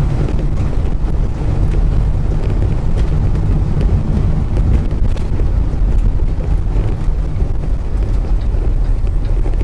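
Semi truck's diesel engine drone and road noise heard inside the cab: a steady, loud low rumble.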